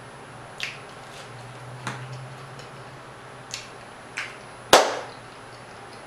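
Close-miked eating sounds of a person chewing a mouthful of food: a handful of short, sharp mouth clicks and crunches, with one louder snap about three-quarters of the way through.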